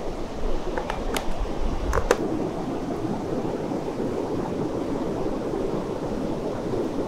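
Steady rushing of a mountain river close by, with a few light sharp clicks about one to two seconds in.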